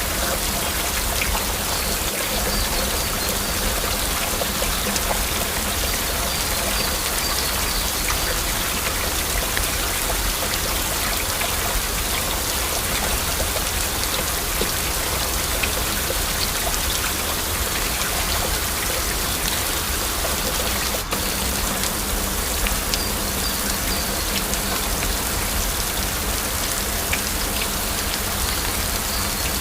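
Heavy rain falling steadily, a dense, even patter of drops with no thunder.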